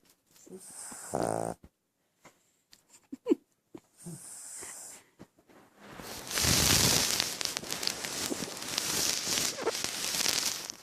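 A dog snoring: one short rattling snore about a second in and a softer breath around four seconds. From about six seconds to the end this gives way to a loud, continuous crackling noise.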